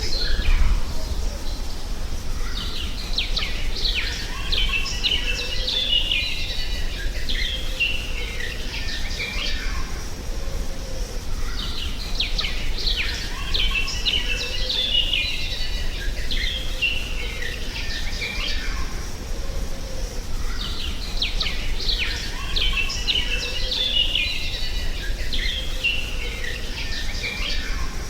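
Birdsong ambience: clusters of quick, high chirps from several birds that come back about every nine seconds, over a steady low rumble.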